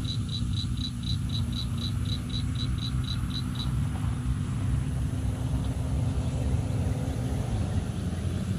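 A motor vehicle's engine running nearby: a steady low rumble with a constant hum that fades out near the end. For the first few seconds a rapid series of short, high chirps, about five a second, runs over it.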